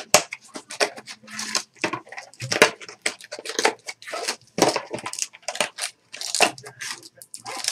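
A trading-card pack's wrapper being crinkled and torn open by hand: an irregular run of sharp crackles and rips.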